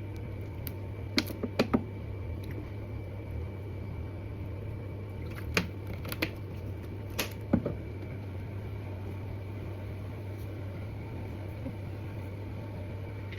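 Steady low mechanical hum, like a fan or air-conditioning unit, with scattered light clicks and knocks: a few close together about a second in and more around the middle.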